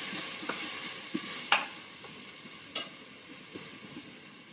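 Onions and ginger-garlic paste sizzling in hot oil in a pot while a wooden spatula stirs and scrapes, with two sharp knocks of the spatula against the pot about a second and a half and nearly three seconds in. The sizzle dies down toward the end.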